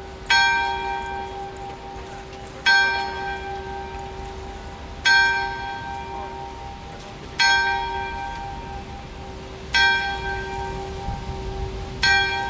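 A single church bell tolling slowly, six even strikes about two and a half seconds apart, each one ringing on and fading into a lingering hum before the next.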